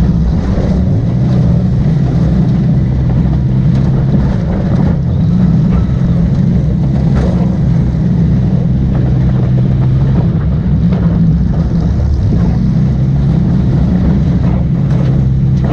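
Demolition derby car's engine running loud and hard, with a couple of faint knocks about five and seven seconds in.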